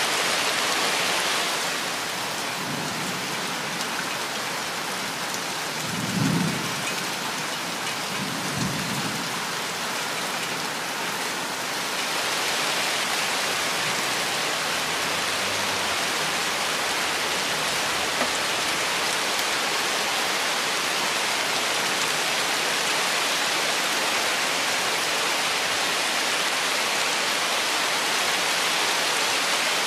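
Steady rain falling, a little lighter for a stretch early on and heavier again from about twelve seconds in, with two short low rumbles of thunder about six and nine seconds in.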